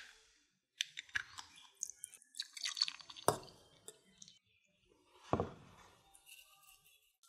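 Spoon stirring wet rice in a ceramic bowl: soft squishy clicks and scrapes, with two sharper knocks about three and five seconds in.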